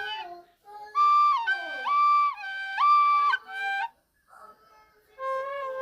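Recorder imitating a two-tone siren: a low note and a high note alternating about every half second, a couple of cycles. It stops about four seconds in, and a lower held note starts near the end.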